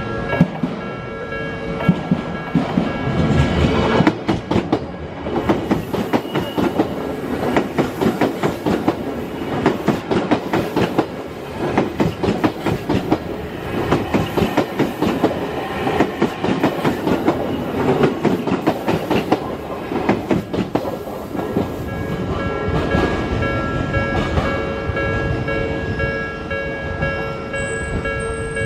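Odakyu train passing over a level crossing, its wheels clacking over the rail joints in a long, fast run of clicks. The crossing's warning bell rings through it, heard plainly at the start and again over the last several seconds as the train noise drops.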